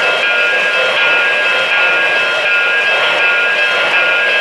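O-gauge model trains running on three-rail track: a steady electric-motor and gear whine with the rumble of wheels on the rails.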